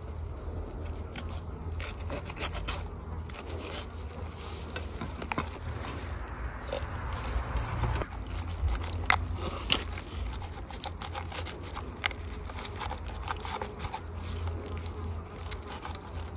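Knife cutting and scraping inside a freshly caught salmon's belly cavity as the roe skeins are worked loose: irregular scrapes and small clicks over a steady low hum.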